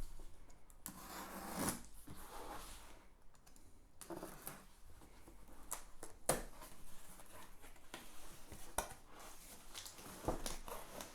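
A cardboard box being unboxed by hand: scattered knocks, clicks, scrapes and rustles of the box flaps and packaging.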